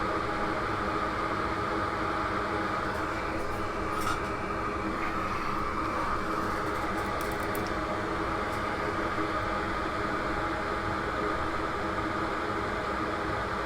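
Steady whirring hum of a small electric fan or blower, with a few faint light ticks between about three and nine seconds in.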